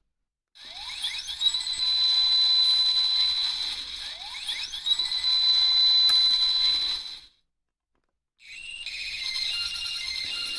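Electronic pachinko sound effects from a homemade sound circuit: twice, a quick upward sweep runs into a steady high beep, then the sound cuts off. After a second of silence a different effect starts near the end, with tones that step in pitch.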